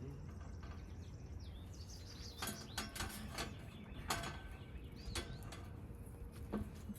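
Scattered clicks and knocks of tools and sheet-metal parts being handled while a heat pump's outdoor unit is put back together, over a low steady hum. A bird chirps faintly in the first second or so.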